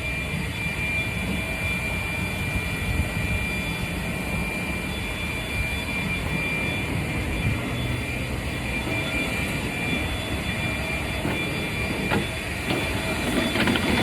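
Honda HRR walk-behind lawn mower running steadily while shredding leaves, with a steady high whine over the engine noise.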